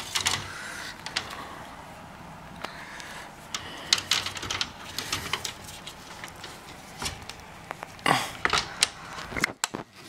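Plastic clicks, taps and rattles of a Sanyo mini-split indoor unit's mesh air filter and front grille being handled, with a louder scraping rustle about eight seconds in.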